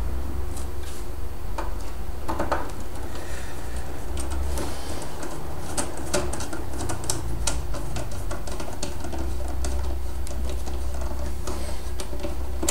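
Screwdriver undoing screws in a metal equipment case, with many scattered small clicks and metal scrapes over a steady low hum.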